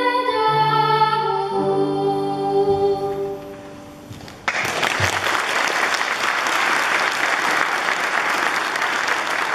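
A boy's solo singing voice with piano holds the song's last notes, which fade away; about four and a half seconds in, audience applause breaks out and continues.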